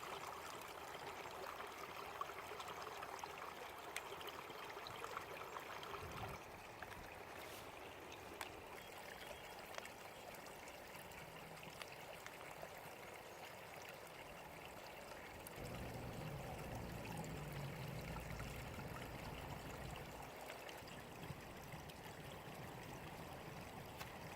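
Faint, steady rushing of a small stream below a trail. A low rumble joins it for a few seconds past the middle.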